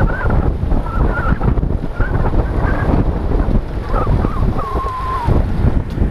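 Wind buffeting an open-backed helmet-mounted GoPro at racing speed, a loud, gusty low rumble throughout. A few thin, high squeaks come through it, the longest near the end.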